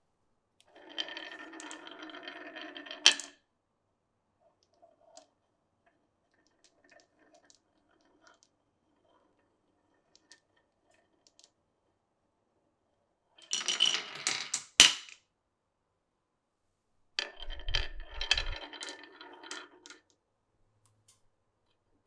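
Marbles rolling and clattering through a marble run, in three separate runs a few seconds long. Each run ends in a sharp click or knock, the loudest about two-thirds of the way through. Faint scattered ticks fall between the runs.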